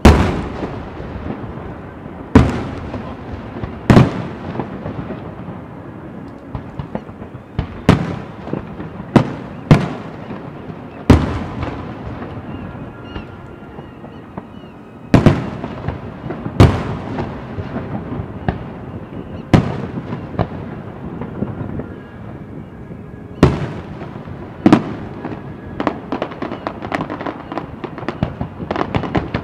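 Aerial fireworks shells bursting: a string of sharp booms, irregularly spaced about one to three seconds apart, each trailing off in an echo. Near the end they give way to a quick run of smaller crackling pops.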